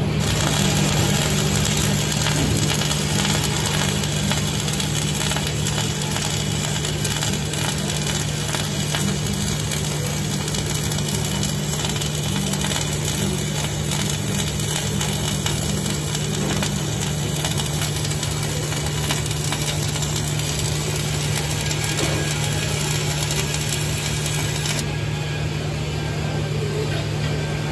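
MIG welding arc running a bead on steel: a continuous dense sizzling crackle, over a steady low hum.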